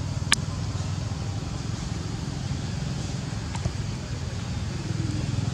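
Steady low rumble of an engine running, with one sharp click about a third of a second in and a faint tick a little past halfway.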